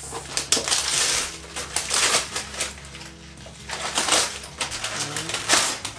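Wrapping paper being torn and crinkled off a gift box, in quick irregular rips and rustles.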